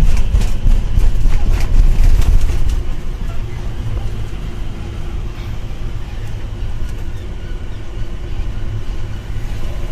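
Road and engine noise of a light truck driving on the highway: a loud low rumble with crackling for about the first three seconds, then a steadier, quieter rumble.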